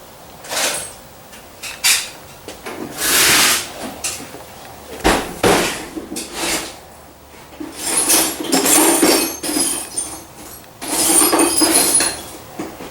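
Irregular clanks, knocks and scraping of metal tools and parts being handled, with a longer scrape about three seconds in and busier clattering near the middle and toward the end.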